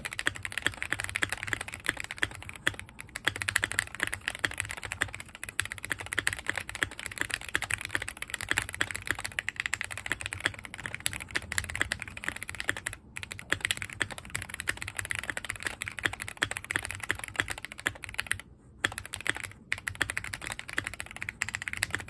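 Fast typing on a tape-modded Keychron Q1 mechanical keyboard with lubed Durock linear switches and MT3-profile keycaps: a dense, rapid run of keystrokes. There is a brief pause about 13 seconds in and a longer one around 19 seconds.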